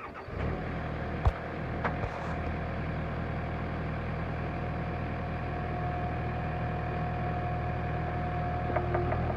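Diesel engine of compact construction equipment running steadily. Two sharp clicks come about a second and two seconds in, and a fast ticking starts near the end.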